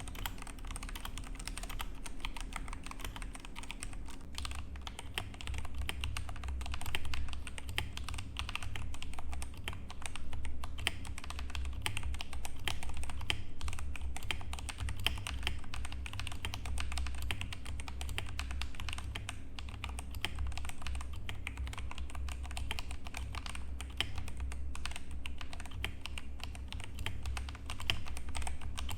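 Continuous typing on a Redragon Magic Wand 65% mechanical keyboard, a steady stream of key clacks. From about five seconds in, the keys are Akko Lavender Purple switches.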